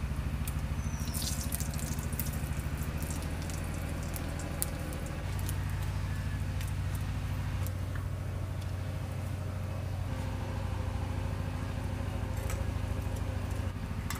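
A small engine running steadily at a low idle hum, a little louder from about five seconds in, with faint scattered crackles above it.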